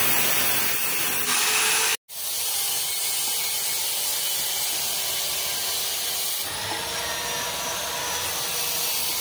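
Angle grinder with a cut-off disc cutting through galvanized steel tube, a steady hissing grind. It breaks off suddenly about two seconds in, then grinding continues at a lower level.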